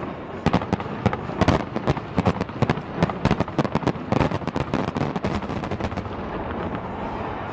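Fireworks going off in a rapid, irregular string of bangs, several a second, stopping about six seconds in.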